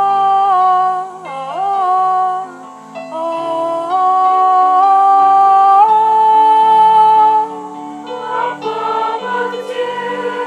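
A song: voices singing long held notes that step from pitch to pitch over a steady instrumental accompaniment, growing softer about seven and a half seconds in.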